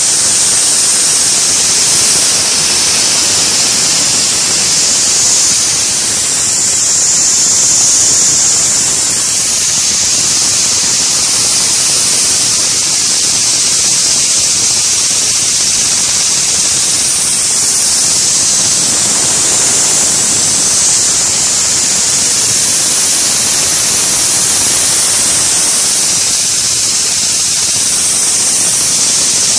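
Small handmade brass two-cylinder reciprocating engine running on compressed air from a hand-held air nozzle, with a loud, steady hiss of air.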